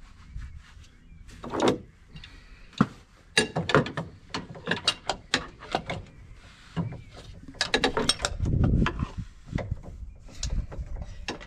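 A wrench working on a John Deere 8360R tractor's engine during an engine oil change: irregular sharp metallic clicks and clinks, with a longer, louder noise about eight seconds in.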